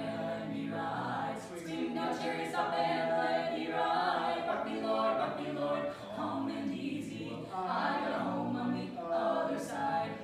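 Mixed-voice barbershop quartet (tenor, lead, baritone, bass) singing a cappella in close four-part harmony, in phrases of held chords with a brief break about six seconds in.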